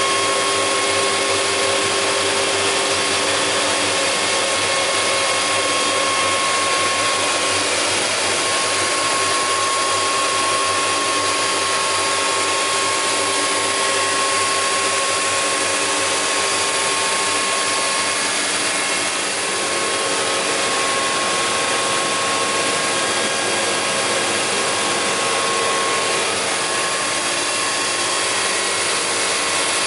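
Weinig Profimat 26 Super four-sided planer running: a dense, even machine noise with a steady whine.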